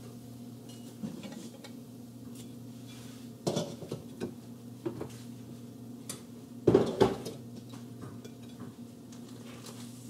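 A metal fork clinking and scraping against a plate and a nonstick frying pan: a few scattered knocks, the loudest cluster about two-thirds of the way in, over a steady low hum.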